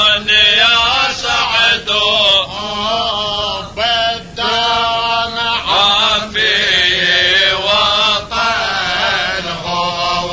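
A man chanting a Sufi tahlila, a devotional Arabic chant, in long, ornamented melodic phrases broken by short pauses for breath.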